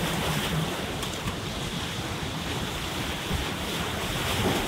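Surf breaking and washing over the boulders of a rock jetty, a steady rushing of water, with wind blowing on the microphone.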